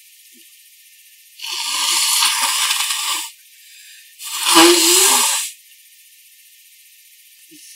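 A person blowing their nose hard into a handkerchief twice: a long blow of about two seconds, then after a short pause a shorter, louder blow with a brief rising honk in it.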